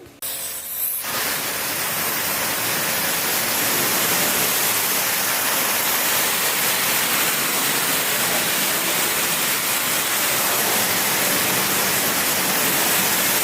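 Pressure-washer wand at a self-serve car wash spraying down a stripped mini bike frame: a steady hiss of water spray that starts about a second in.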